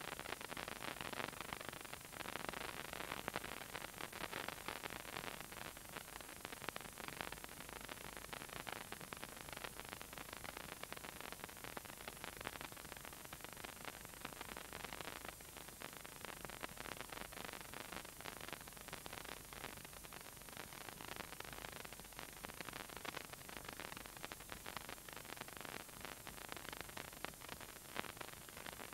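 Continuous crackling rustle over a steady hiss.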